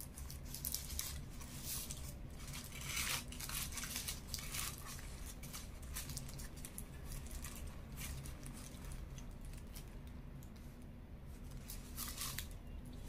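Paper burger wrapper crinkling and rustling in short, irregular bursts, busiest over the first few seconds and again near the end, while a chicken burger is being eaten and chewed.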